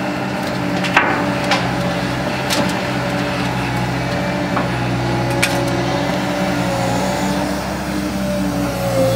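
Caterpillar 315D L excavator's diesel engine running steadily while the bucket dumps a load of dirt into a steel dump-truck body. Several sharp knocks and clanks come over the engine in the first half, the first the loudest.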